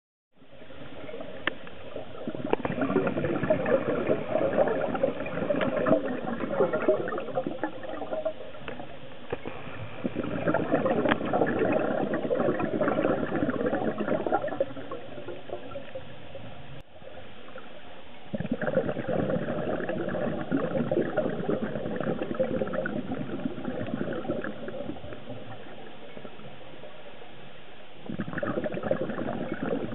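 A scuba diver's exhaled bubbles gurgling out of the regulator, heard underwater. They come in four long bursts with quieter spells between, as the diver breathes in.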